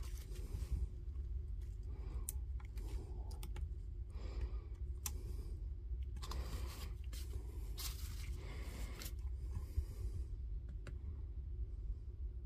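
Scattered light clicks, taps and short scrapes of hands handling a soldering iron and battery-pack parts while the board's connections are soldered, over a steady low hum.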